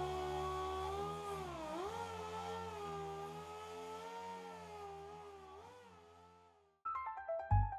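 Electric orbital sander running with a steady whine. Its pitch dips briefly about two seconds in, as if pressed harder onto the panel, then it fades away. Piano music starts near the end.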